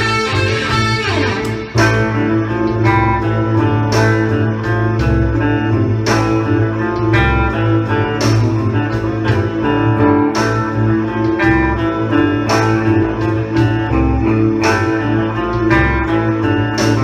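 Electric guitar playing an instrumental break in a rock song, with no singing. A falling slide comes in the first two seconds, a low tone is held underneath, and strong accents fall about every two seconds.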